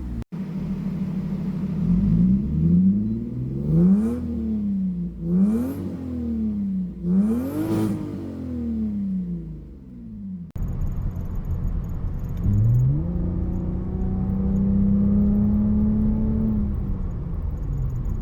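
Freshly swapped-in non-VVTi Toyota 2JZ-GE straight-six in a Lexus GS300, running and revved three times, the pitch rising and falling back each time. After an abrupt change about halfway through, it revs up and holds a steady higher speed for several seconds, then drops back.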